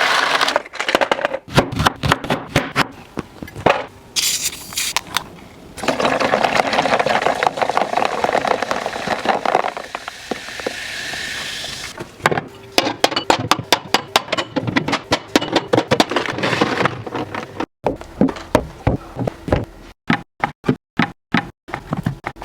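Food packaging and plastic storage containers being handled: sharp clicks, taps and scrapes, with a continuous rustling stretch in the middle.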